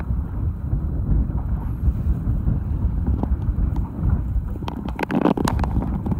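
Wind buffeting the microphone over a steady low rumble from the fishing boat, with a short run of clicks and knocks about five seconds in.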